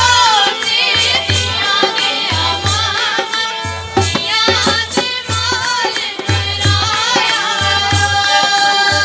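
Two women singing a Gojri folk song together into a handheld microphone, their voices gliding through long held notes, over a low drum beat about once a second.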